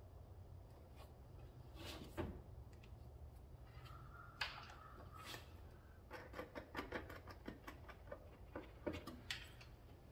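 Faint clicks and small scrapes of hand work threading a screw into a black-tank probe fitting, with a short squeak about four and a half seconds in and a run of small ticks later on, over a steady low hum.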